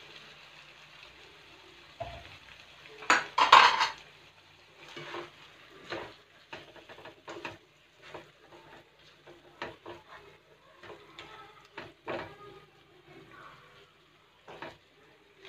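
Chicken and banana blossom frying in a nonstick pan as soy sauce is spooned in, with a loud burst about three seconds in. Then a slotted spatula scrapes and knocks against the pan again and again as the mixture is stirred.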